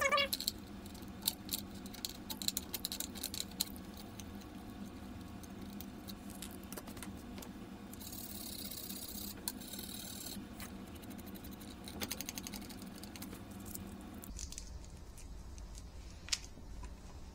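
Scattered light clicks and rattles of hands handling small tools, wire terminals and parts on an open battery charger chassis, with a brief hiss about eight seconds in.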